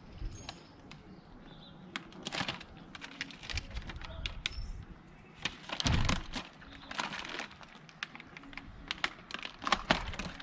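Transfer tape being peeled off a vinyl decal, crackling and clicking irregularly as it pulls away from the surface, with a dull knock about six seconds in.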